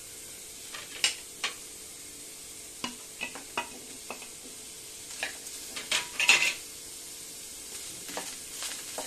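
Wooden spatula stirring sliced onions dry-roasting in a stainless steel kadhai: scattered scrapes and knocks against the pan, busiest about six seconds in, over a steady low hiss.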